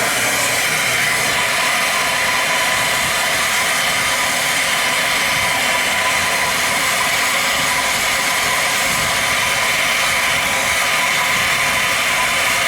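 Gas torch burning with a loud, steady hiss as it heats the seized hub bolts; the hiss starts suddenly.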